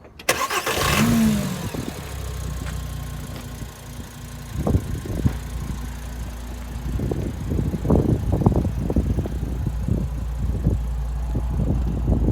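Audi TT RS's turbocharged 2.5-litre five-cylinder engine starting: it catches and flares up in revs, then settles to a steady idle. From about four seconds in it is blipped with short throttle revs, more and more often toward the end.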